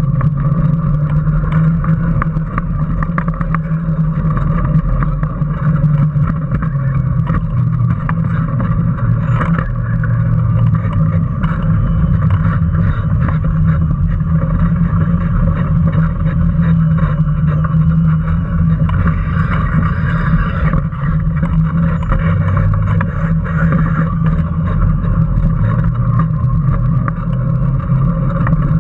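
Onboard sound of a Power Racing Series electric kart driving at speed: a steady low rumble with constant rattling and clatter from the car and its camera mount.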